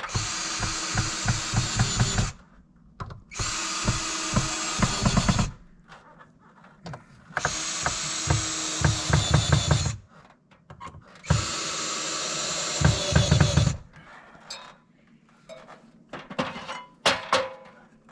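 Power drill running in four bursts of about two seconds each, with low knocking that builds toward the end of each burst, as it drives fasteners into wooden trim. Scattered small clicks and knocks follow near the end.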